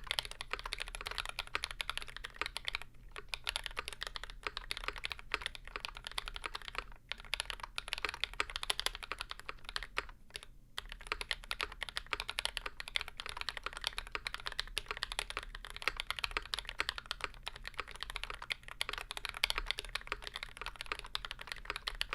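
Fast, continuous typing on a mechanical keyboard with tactile YOK Burgundy switches under an aluminium plate and GMK doubleshot keycaps, giving a clacky sound with brief pauses a few times. The typing stops right at the end.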